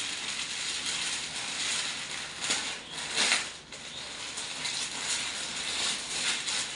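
Plastic packaging crinkling and rustling as a folded dress is taken out of its bag and handled, with louder crackles about two and a half and three and a half seconds in.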